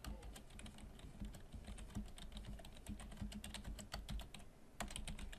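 Quiet typing on a computer keyboard: a quick run of key clicks, with a brief pause about four seconds in before a few more keystrokes.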